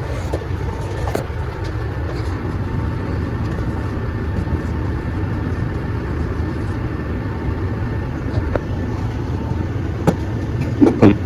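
Steady low rumbling background noise, with a few light clicks and a brief louder scrape or rustle near the end.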